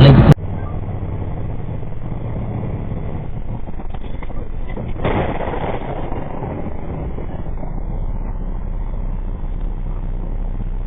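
Steady low engine and road noise of a car on the move, heard from inside the cabin through a dash cam's microphone. A brief swell of louder noise comes about five seconds in.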